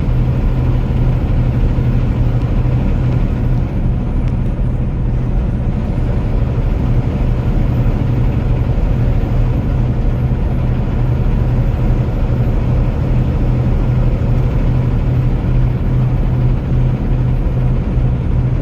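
Steady engine and road noise from a vehicle driving at highway speed, with a constant low drone and no change throughout.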